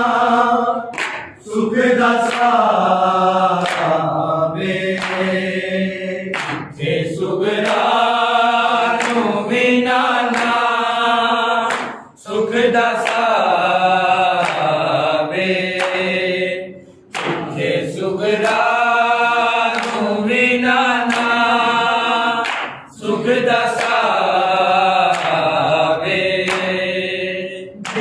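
A group of men chanting a Punjabi noha, a Shia lament, in unison without instruments. They sing long drawn-out phrases of about five seconds each, with brief pauses for breath between them.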